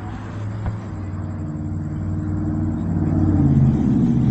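A motor vehicle's engine running close by, a steady low hum that grows louder and rises in pitch toward about three and a half seconds in, then eases a little. A single sharp pop sounds near the start.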